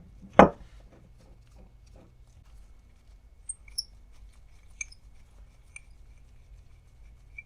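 A sharp knock about half a second in, then faint, irregular light clicks and scratchy ticks as the mini vise's lead screw is turned by hand and its jaw run back and forth, freshly coated in moly grease and still binding a little.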